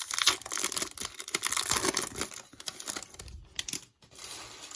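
Crinkly plastic wrapper of a 2021 Topps Series 1 baseball card pack being torn open and crumpled: a dense crackle of fine clicks that softens to a faint rustle near the end.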